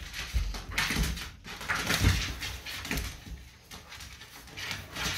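A pot-bellied pig and two dogs playing roughly together on a tiled floor: irregular scuffling, with several low thumps and noisy bursts.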